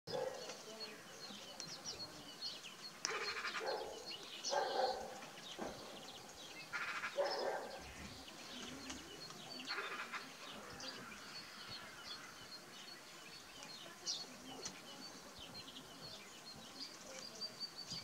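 Wild birds calling: many short, high chirps and twitters throughout, with a few louder, harsh calls about 3, 7 and 10 seconds in.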